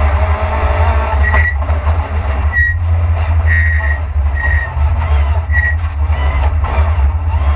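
Lada VFTS rally car's four-cylinder engine running hard, heard loud from inside the cabin with heavy road rumble. Short high-pitched tones sound six times, roughly once a second.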